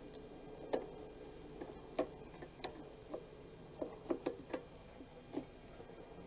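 Hard plastic clicks and taps from the carburetor and air-filter base being handled and fitted onto a Briggs & Stratton 500E mower engine: about ten sharp clicks at irregular intervals, some in quick pairs.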